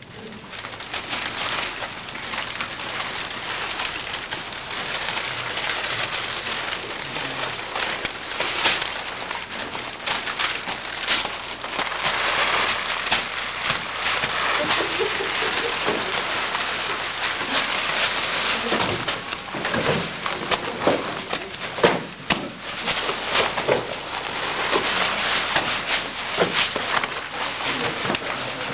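Several people crumpling and tearing sheets of newspaper: a dense, continuous rustling and crackling of paper that starts about half a second in.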